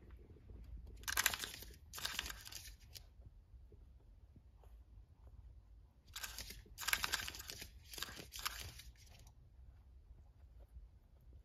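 Lop-eared rabbit's claws scraping and scratching at a wooden floor as it digs, in two bouts of rapid scratching: one about a second in, lasting two seconds, and a longer one from about six to nine seconds in, with quiet pauses between.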